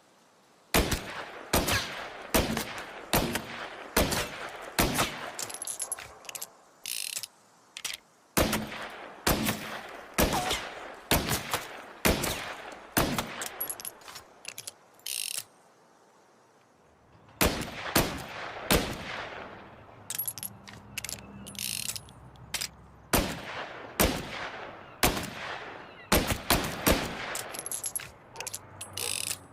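Pocket revolver gunshots fired in quick series, dozens of sharp shots at uneven spacing with a short pause of about a second and a half around the middle.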